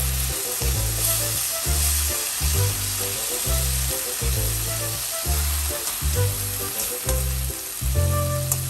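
Meat sizzling as it fries in a hot pan, a steady hiss, with background music's steady beat underneath.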